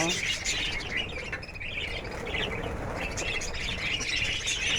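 A flock of caged lovebirds chattering, many short high chirps overlapping, thinning a little in the middle and picking up again near the end.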